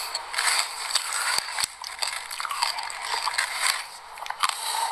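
Close-miked crunchy chewing of a mouthful of sesame seeds with passion fruit yogurt, a dense crackle with a few sharp clicks. Near the end a spoon digs into the tub of loose seeds.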